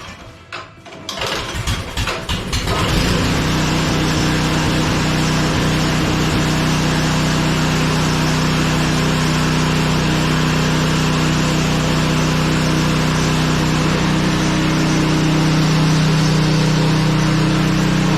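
Briggs & Stratton small engine being pull-started on a test start after repair: a few uneven rope-pull cranks, then it catches about three seconds in and runs steadily at a constant speed.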